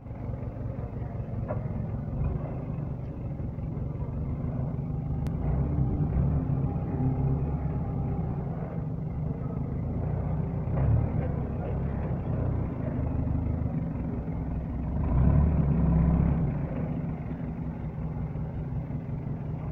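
Forklift engine running as the truck drives and turns, a steady low rumble that swells louder for a couple of seconds about three-quarters of the way through.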